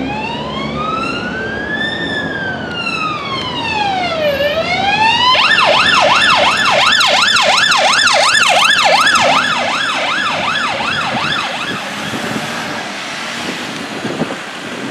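UK ambulance siren sounding a slow wail, one long rise and fall in pitch. About five seconds in it switches to a fast yelp of roughly three sweeps a second, loudest as the ambulance passes. It then fades into road traffic noise near the end.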